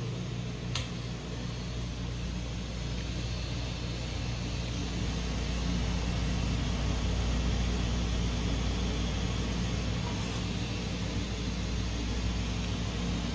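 Commercial refrigerator running: a steady whir and low hum from its fan motor, with a single sharp click about a second in.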